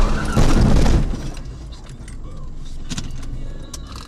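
A car strikes a small flatbed truck: a loud crunch and scrape of metal in the first second, then engine and road noise with a couple of sharp clicks.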